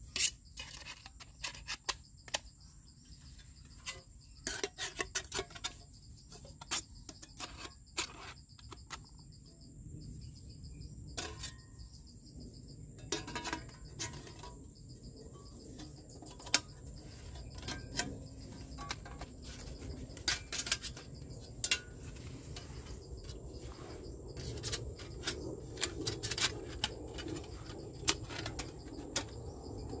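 Thin titanium plates of a flat-pack Überleben Stöker wood stove clinking and clicking against each other as they are handled and slotted together, in irregular light metallic knocks. A steady high insect drone carries on behind.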